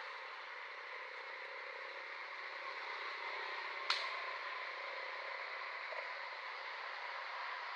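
Steady outdoor background noise with one sharp click about four seconds in.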